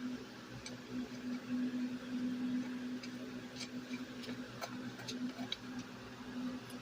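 A steady low hum with scattered faint light clicks and ticks.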